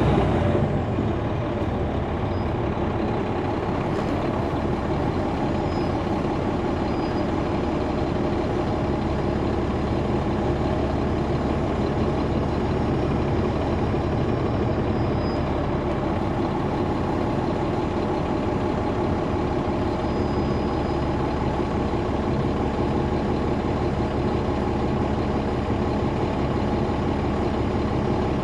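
Caterpillar C13 ACERT diesel engine of a 2009 NABI 40-ft transit bus idling steadily, with the engine cooling fans running. A hiss fades out in the first second.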